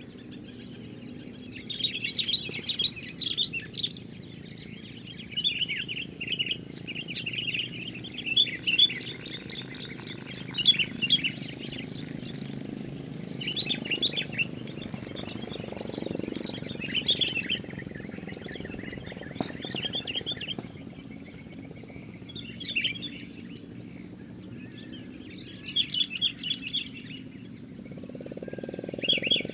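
Sooty-headed bulbuls calling back and forth in repeated short bursts of quick, bubbling notes, one burst every second or two. A steady low background rumble runs under the calls.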